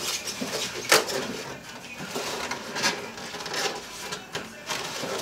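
A foam packing insert holding a steel fire pit bowl being handled and lifted: a series of short rubbing and scraping sounds, with a sharp knock about a second in.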